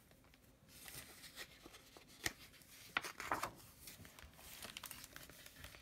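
Paper rustling and a few sharp snaps as a picture book's page is turned and smoothed flat by hand.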